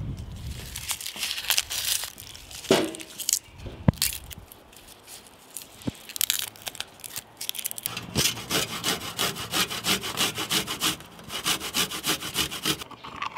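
Tomatoes being rubbed over a hand grater: rasping strokes, irregular at first, then a fast, even run of about four or five strokes a second through the second half.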